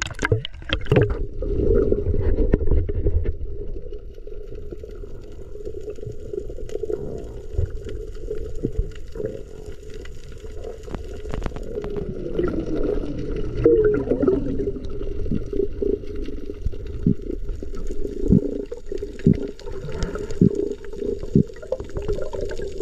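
Underwater sound picked up by a submerged action camera: a muffled, steady water noise and hum, with scattered sharp clicks and knocks. There is a burst of splashing right at the start as the camera goes under.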